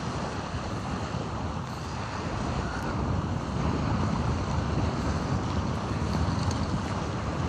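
Strong wind buffeting the microphone, with choppy lagoon water lapping and breaking in small waves over a shallow sandbar.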